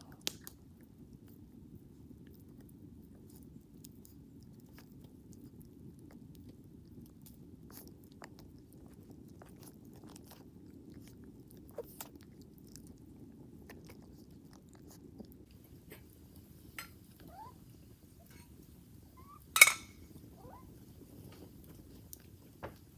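A puppy gnawing and chewing on a bone, with scattered small crunches and clicks and one sharp crack a few seconds before the end.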